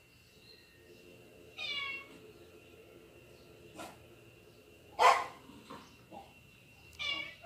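Cats meowing through a television's speaker, with one meow about two seconds in and another near the end. A louder, sharper short sound comes about five seconds in.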